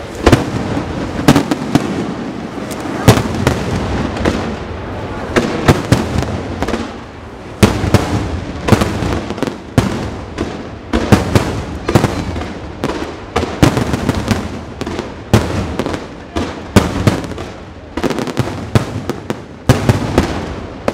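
Aerial firework shells bursting in quick succession: a steady run of sharp bangs, about one or two a second, over a continuous crackle.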